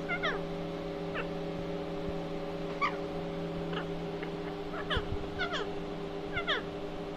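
Pet parakeet giving a string of short, falling chirps, about one a second, each only a fraction of a second long, over a steady low hum.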